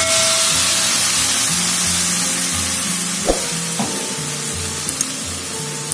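Water sizzling as it hits a hot wok of stir-fried vegetables and seafood, a dense hiss that slowly dies down, with a few light clicks.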